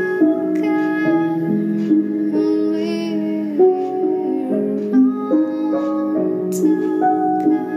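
A woman singing a slow, soft song over acoustic accompaniment, with held notes that waver in pitch.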